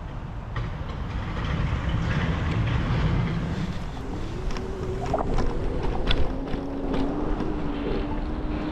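Wind and rolling noise from a moving scooter ride, a steady low rumble on the microphone. About four seconds in a steady whine joins and rises slightly in pitch, with a few sharp clicks and rattles.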